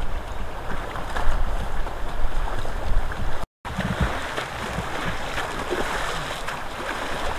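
Water splashing and sloshing as a person wades chest-deep through a shallow river, with some low wind rumble on the microphone. The sound drops out for a moment about halfway through.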